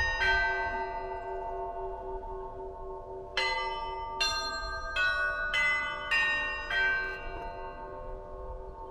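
Orthodox monastery church bells ringing. Smaller bells of different pitches are struck one at a time, once just after the start and then six times in quick succession about three seconds in, over the long pulsing hum of a larger bell, and the strikes die away near the end.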